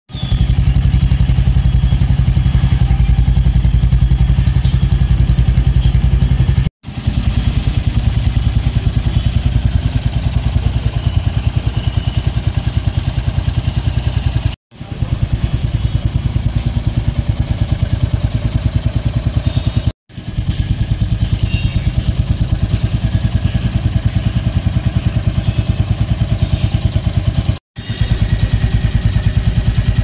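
Royal Enfield Hunter 350's single-cylinder engine idling, a steady even thump through its exhaust. The sound cuts out briefly four times.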